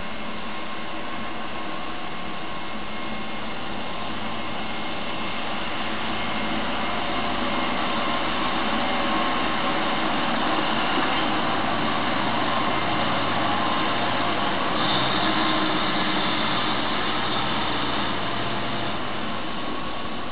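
DB Netz Instandhaltung maintenance railcar passing slowly, its engine running steadily. It grows louder as it comes close past the platform and eases off near the end as it moves away.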